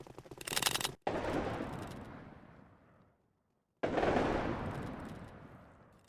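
Two distant musket shots, about three seconds apart, each a sudden report followed by a long rolling echo that fades away over about two seconds. A short crackle and hiss comes just before the first shot.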